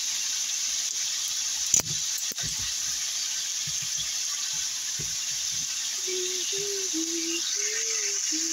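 Cubes of pork frying in soy sauce in a hot wok, a steady sizzle, with a sharp knock about two seconds in.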